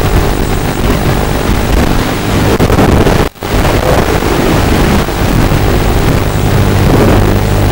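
Walkera F210 racing quadcopter's motors and propellers whirring under heavy wind rush, heard through the drone's onboard microphone as it flies fast and low. The sound drops out for an instant a little under halfway through.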